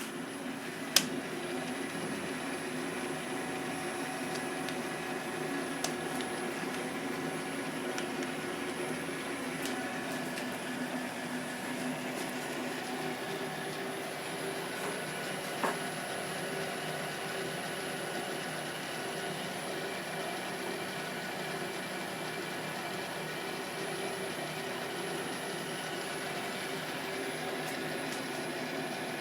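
South Bend Model 9A metal lathe running steadily under power: an even hum from the motor and gear train with several steady tones. There is a sharp click about a second in and a smaller one past the middle.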